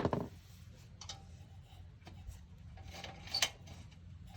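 A few light clicks and taps of a metal kerosene pressure lantern being handled, the sharpest right at the start and another about three and a half seconds in, over a low steady hum.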